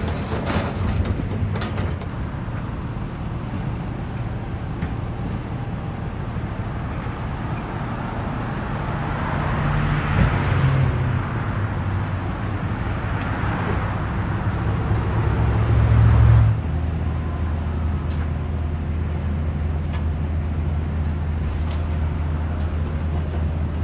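Steady low engine rumble that swells about ten seconds in and again around sixteen seconds, where it cuts off abruptly. A faint high whine sounds near the end.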